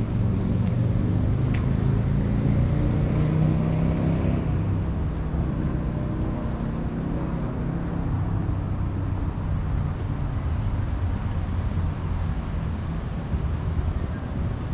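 Low engine drone of a passing motor vehicle, loudest in the first few seconds and then fading, over steady city traffic noise.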